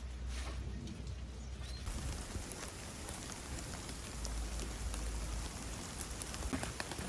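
Steady rain falling, an even hiss with a few scattered drop ticks, filling in about two seconds in.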